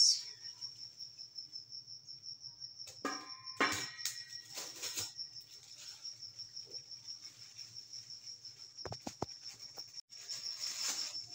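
A cricket chirping in a steady, rapid high-pitched trill throughout. Over it comes the crinkling of a plastic flour bag as flour is scooped out with a cup, heard a few seconds in and again near the end, with a couple of light knocks about nine seconds in.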